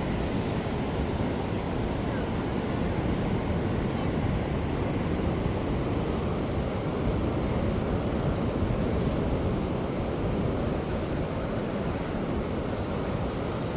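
Steady wash of ocean surf and wind, an even noise with no breaks.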